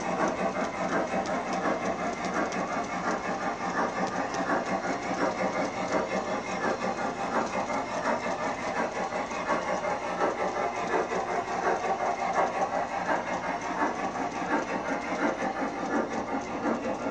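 MTH G scale model train running on the layout: a steady rolling noise of metal wheels on the rails with fine clicking, and a hiss that fits the model steam locomotive's sound system. It keeps on unchanged after the last passenger car has moved away.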